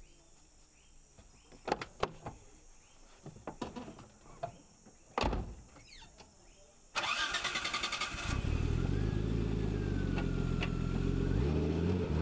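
Car door latch clicks and a door shutting about five seconds in; then the starter of a classic Datsun Z (S30) coupe cranks for about a second before the engine catches and settles into a steady idle, with a short blip near the end.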